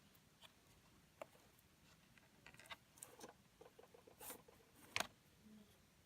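Faint small clicks and light scraping from a laptop memory module and pry tool being worked in the open MacBook Pro as the module is popped up and freed from its slot, with one sharper click about five seconds in.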